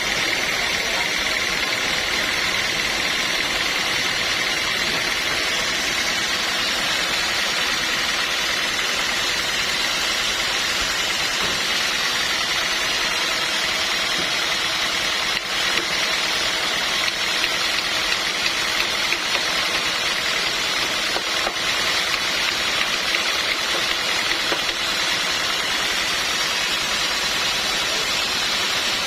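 Sawmill saw running steadily, a constant mechanical noise with a high whine, with light crackling from about halfway through.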